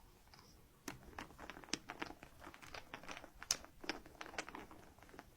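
Close, irregular crinkling and clicking of something being handled, starting about a second in.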